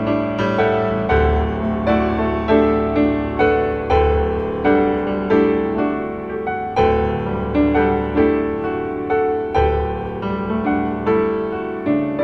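Piano music, single notes struck one after another over sustained chords, with a low bass note every few seconds.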